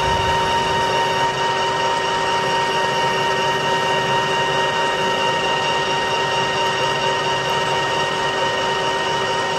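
Colchester Mastiff metal lathe running under power while its turning tool cuts a radius across the face of a hammer head, throwing off swarf. A steady machine whine with several fixed high tones sits over the running noise of the cut.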